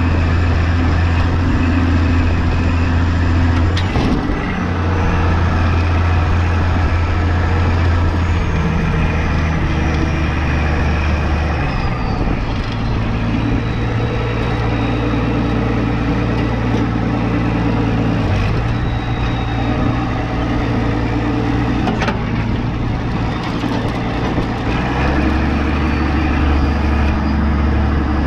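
Allis-Chalmers farm tractor engine running as the tractor drives along, its note stepping up and down several times with throttle changes. A faint high whine slides down in pitch partway through, and there are a couple of brief knocks.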